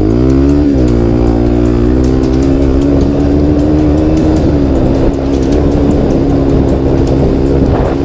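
Single-cylinder four-stroke trail motorcycle engine running under throttle: the revs climb sharply right at the start, then hold fairly steady.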